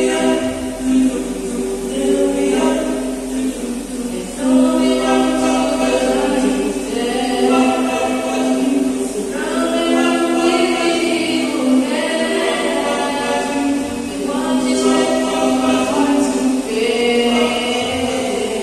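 Male vocal group singing a cappella in harmony, amplified through handheld microphones, holding long chords that change every second or two.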